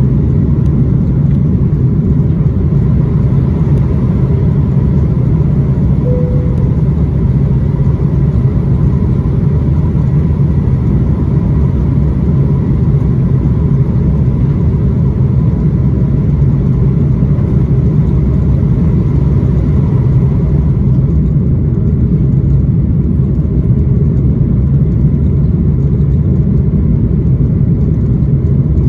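Airbus A330-300 cabin noise at takeoff thrust from a seat over the wing: a loud, steady, deep engine rumble through liftoff and initial climb. A faint whine rides on top and fades about 20 seconds in.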